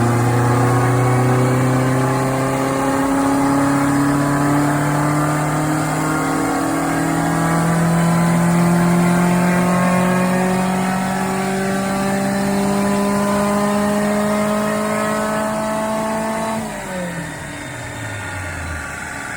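Mk1 Volkswagen Golf GTI four-cylinder engine at full throttle on a rolling road, its revs climbing steadily through a power run for about sixteen seconds. Near the end the throttle is lifted and the revs fall quickly away.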